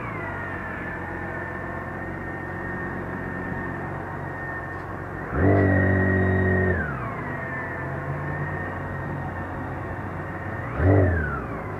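BMW K1600 GT's inline-six idling, with its starter-motor-driven reverse assist cutting in twice: a whine for about a second and a half midway and again briefly near the end, each time falling in pitch as it stops. The reverse is all-or-nothing, on while the starter button is held and off when it is released.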